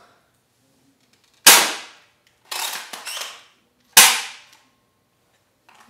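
Spring-powered Quadshot foam-dart blaster, modified with a stronger spring, firing twice about two and a half seconds apart, each a sharp loud pop. A softer, longer noise falls between the two shots.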